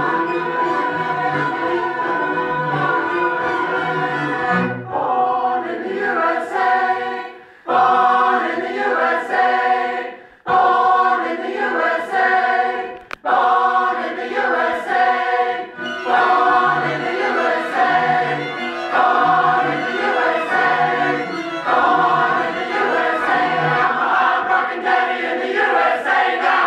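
Mixed choir singing with string accompaniment. Held chords give way to short, forceful rhythmic phrases broken by several sudden stops, and the music cuts off abruptly at the end.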